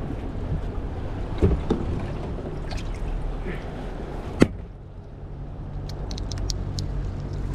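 Boat motor running low over wind and water noise, with one sharp click a little past halfway, after which a steady low engine hum is left with a few light ticks.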